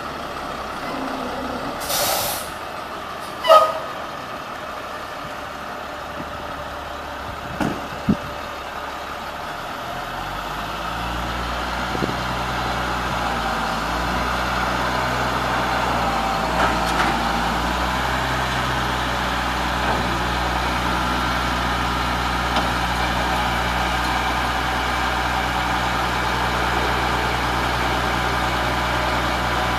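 Chevy C7500 medium-duty truck: a sharp hiss of released air about two seconds in and a shorter, louder burst just after, typical of its air brakes. Two short knocks follow, and about ten seconds in the engine's steady low running sound comes up and holds.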